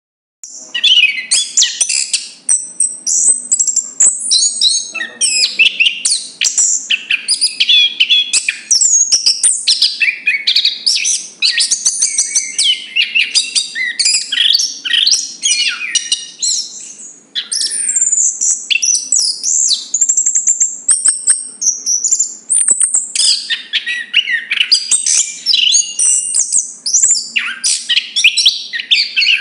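Chestnut-capped thrush (Zoothera interpres) singing a loud, rapid, varied song of high whistles and chattering phrases, almost without a break, pausing briefly a little past halfway.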